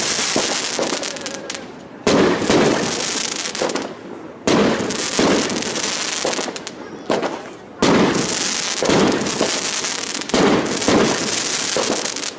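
Aerial firework shells bursting overhead: four sharp bangs a few seconds apart, each followed by a long crackling, sizzling tail of falling sparks.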